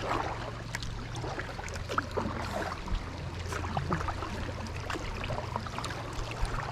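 Water noise from a kayak moving along a creek: a steady wash of splashing and trickling, dotted with small drips and ticks, over a low steady rumble.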